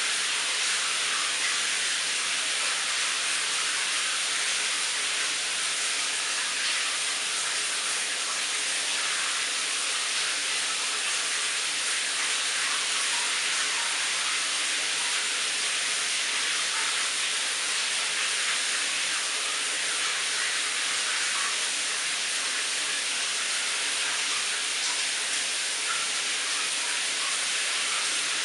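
Shower running: a steady hiss of water spraying down in a tiled shower stall, unchanging throughout.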